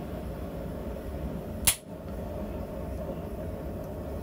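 Steel chisel set down on a steel anvil face: one sharp metallic clink a little before halfway through, over a steady low background rumble.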